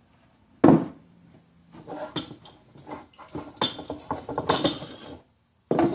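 Bird feeder being handled: a sharp knock, then a run of irregular clattering and rattling of hard parts, and another knock near the end.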